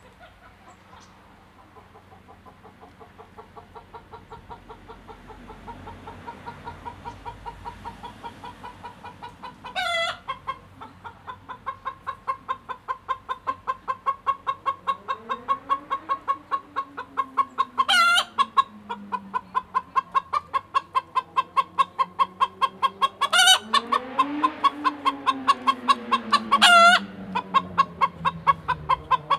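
Vorwerk hen cackling the egg song: a fast run of clucks that grows steadily louder, broken four times by a long, loud squawk. The nest she sings over holds no egg. A lower sound rising and falling in pitch runs underneath in the second half.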